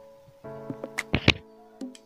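Soft background music: a few short notes that ring on.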